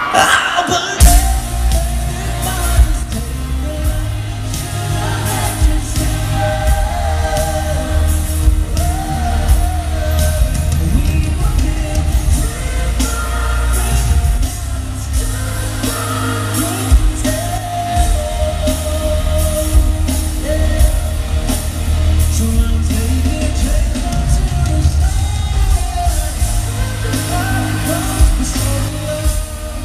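Live pop-rock song played loud in an arena: a male singer over a heavy bass line and a steady drum beat, which kick in sharply about a second in.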